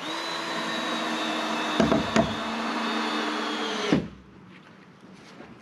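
Cordless drill running steadily at one speed, driving a screw into framing lumber, with a couple of sharp clicks midway. It stops abruptly about four seconds in.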